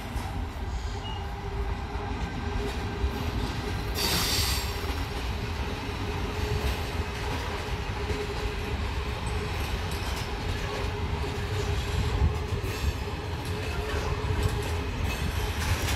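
VR Class Sr3 electric locomotive hauling a freight train of loaded log wagons past, a steady low rumble of wheels on the rails with a faint steady whine above it. A short hiss about four seconds in.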